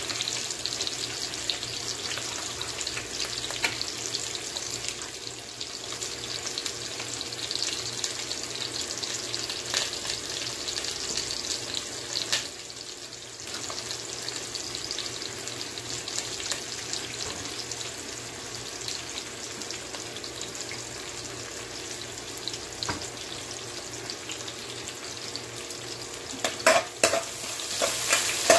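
Sliced onions sizzling steadily in hot oil in a wok, crackling throughout. Near the end a metal spoon stirs them, with a few sharp scrapes and knocks against the pan.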